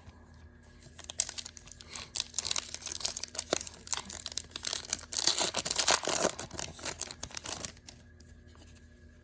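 A foil trading-card pack wrapper being torn open and crinkled by hand. It is a dense crackling rustle that starts about a second in and stops near the end.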